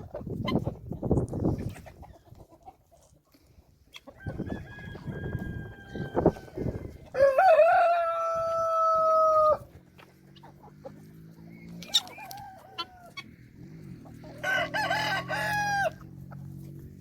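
Farm chickens clucking while a rooster crows twice: a long crow about seven seconds in, the loudest sound, and another near the end that drops in pitch as it finishes, with a shorter call in between. A low steady hum runs underneath from about ten seconds in.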